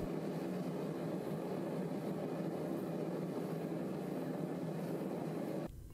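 Red-hot steel knife blade being quenched in oil, the oil flaring and sizzling steadily around the blade. The sound cuts off abruptly shortly before the end.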